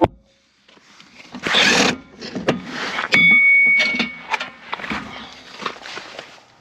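Metal parts of a corn planter row unit clanking and scraping as the old disc openers are worked off. There is one ringing metal clang about three seconds in, lasting about a second, among scattered knocks.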